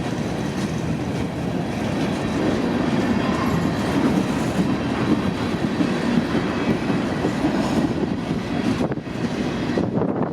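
Freight train cars rolling past at speed, a steady rumble with continuous clickety-clack of wheels over the rail joints.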